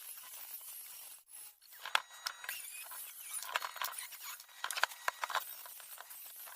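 A scattered run of light clicks, clinks and scrapes over a faint hiss, starting about two seconds in and stopping shortly before the end.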